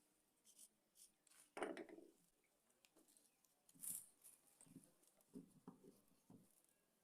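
Faint scattered clicks and small knocks of objects being handled, with a louder thump about one and a half seconds in and a brief hiss about four seconds in.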